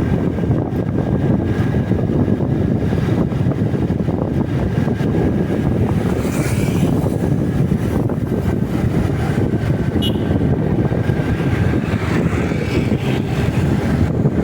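Riding noise from a moving motorcycle: steady wind rushing over the microphone mixed with engine and road noise.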